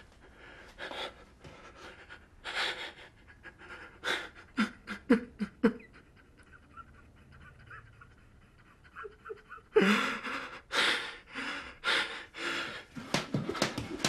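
A person breathing heavily and panting, with a few short voiced sounds about five seconds in; the breaths ease off for a few seconds, then come back louder and faster from about ten seconds in.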